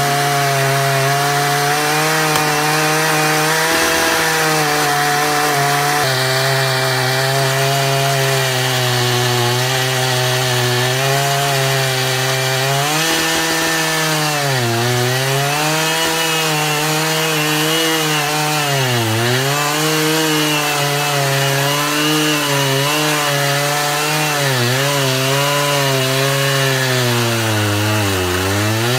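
Gasoline chainsaw running at full throttle as it cuts into a large tree trunk. Its engine pitch drops briefly several times in the second half as the chain bogs down in the wood, then recovers.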